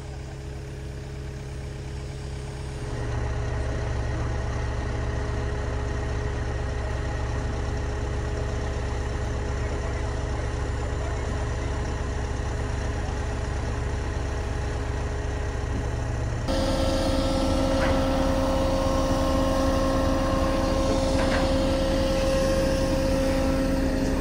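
Heavy crane engine running steadily under load while it holds the bunker on its cables. The sound jumps louder about 3 seconds in and changes to a higher, brighter engine tone about 16 seconds in.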